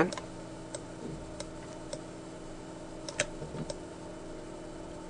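About five faint, sharp clicks from a computer mouse and keyboard, spread unevenly over a few seconds, the clearest a little past three seconds in, over a steady low electrical hum.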